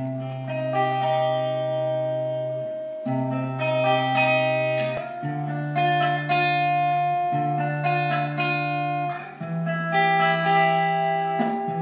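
Instrumental introduction of a slow song: guitar notes plucked over long held bass notes that change every two to three seconds.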